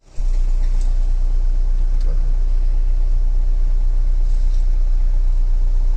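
A car's engine idling, heard from inside the cabin as a steady low rumble. There is a brief dropout right at the start.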